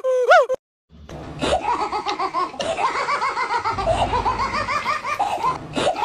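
Half a second of sliding, rising-and-falling whoops that cut off, then after a short gap a long run of fast laughter, rapid short 'ha' sounds with only brief breaks.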